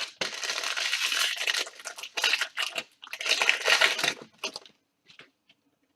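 Trading card pack wrapper being torn open and crinkled, in three rustling bursts over about four and a half seconds, followed by a few faint ticks.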